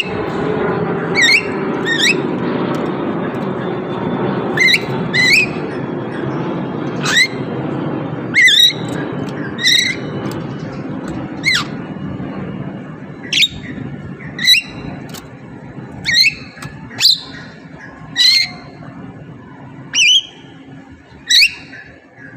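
Javan myna giving short, harsh squawking calls, repeated about once a second and sometimes in quick pairs. A steady low background hum fades out about halfway through.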